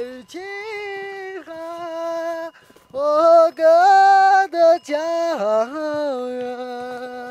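A single voice singing unaccompanied: long held notes with slides between pitches, in several phrases broken by short pauses.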